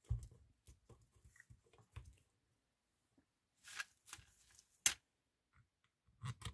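Handling noises from a small 12 V compressor's plastic housing being turned and fitted together by hand: a soft knock at the start, scattered light clicks and rustles, and one sharp click about five seconds in.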